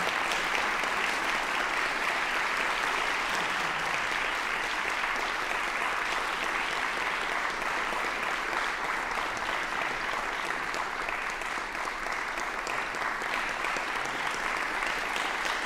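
Audience applauding steadily: dense, even clapping in thanks at the close of a talk.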